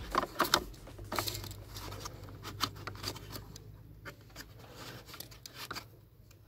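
Hands handling a black plastic sensor mounting bracket and loose wiring: a series of sharp plastic clicks and taps with light rustling, thickest in the first second and thinning out later.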